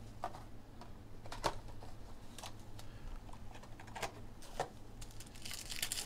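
Hands handling a trading-card hobby box and opening a card pack: scattered light clicks and taps of cardboard and wrapper, with a short crinkle of the pack wrapper near the end. A faint low hum runs underneath.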